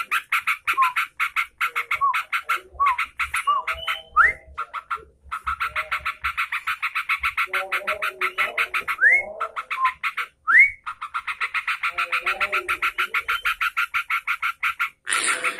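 Sooty-headed bulbul (trucukan) lure recording: a fast, even pulsing trill of about ten notes a second, with short rising whistled notes a few times and low chattering phrases in between.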